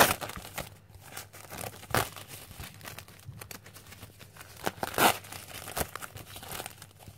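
Crinkling and rustling of a sanitary pad's thin wrapper as it is pulled open and the pad unfolded by hand, with sharper crackles at the start and around two and five seconds in.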